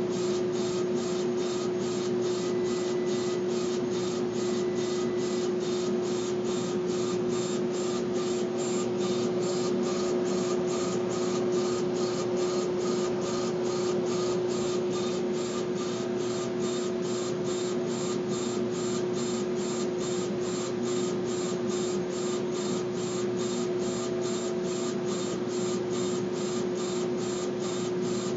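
Laser engraver running as it engraves a wooden drumstick turning on a rotary attachment: a steady hiss and hum, with a faint regular tick about twice a second as the laser head sweeps back and forth.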